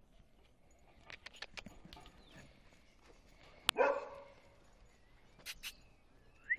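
A dog barks once, loudly, about four seconds in, with a few faint clicks and taps before and after it.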